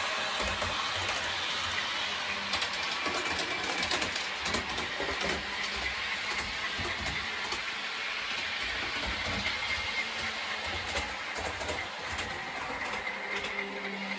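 Model train running on a layout: a model diesel locomotive and its wagons rolling along the track, wheels clicking over the rail joints over a steady motor hum and a faint whine.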